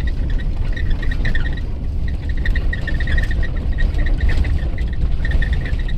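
Wind rumble on the microphone and engine noise from a moving vehicle on a rough trail, with a rapid high chirping that repeats throughout.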